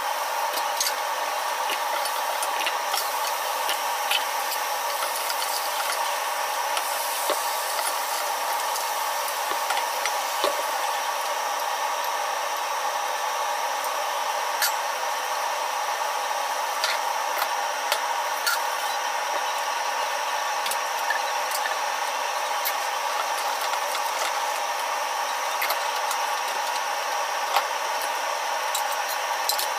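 Food frying in a pan, with scattered crackles and pops from the hot oil, over the steady whir of a kitchen range hood fan.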